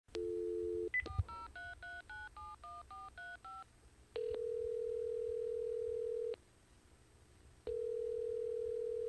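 Telephone call being placed: a dial tone for under a second, then a quick string of keypad touch-tones as a number is dialed, then the ringback tone ringing twice while the line rings through.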